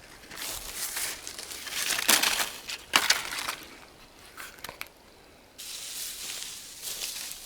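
Footsteps crunching on forest ground in uneven steps, with a quieter pause of about a second and a half after the middle.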